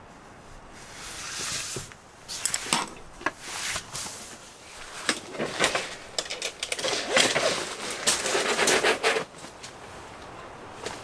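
Clicks, knocks and rustling of camping gear being handled and set up by hand, a quick irregular series of sharp clicks mixed with rustles over most of the stretch.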